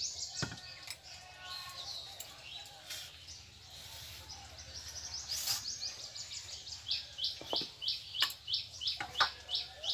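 A small bird chirping, a quick series of short, high chirps about three a second that grows loudest in the last few seconds, with a few light knocks scattered through.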